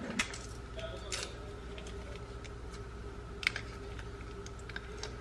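Quiet kitchen handling while a stick of butter is unwrapped: a few light clicks and taps over a steady low hum.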